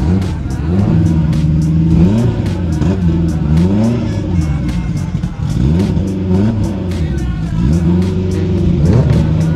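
A car engine revving up and falling back again and again, several times in a row, over background music with a steady beat.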